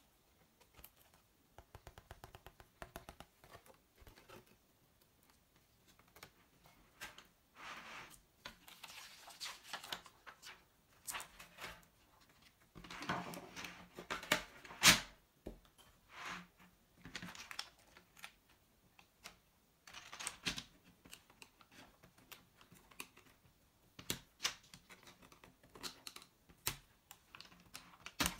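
Handling noise from a membrane keyboard being taken apart: its plastic case and parts clicking and knocking, and the plastic sheets and plate rustling. The sharpest click comes about halfway through.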